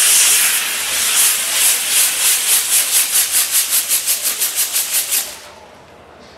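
Ground firework wheel spinning, its fountain charges spraying sparks with a loud hiss that pulses in a quickening rhythm of about five or six beats a second as the wheel turns. The hiss cuts off suddenly a little over five seconds in, when the charge burns out.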